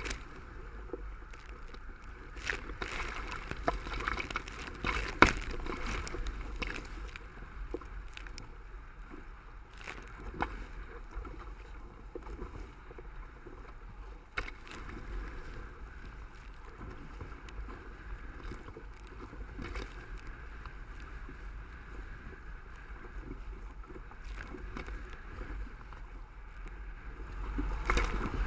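Hobie Cat catamaran hull pushing upwind through choppy water: a steady rush of water along the hull, with irregular slaps of waves and spray against the hull and the camera. The loudest slap comes about five seconds in, and the water rises again near the end.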